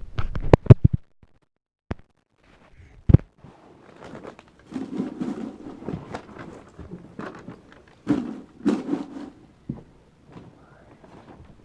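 Household objects being handled and moved while tidying a room: a quick cluster of sharp knocks and clatters at the start, a single knock about three seconds in, then rustling and shuffling with scattered knocks.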